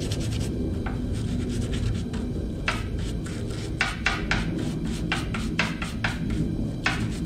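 Small wire brush scrubbing a steel pivot pin clean against a wooden block, in short irregular scraping strokes that come thicker in the second half.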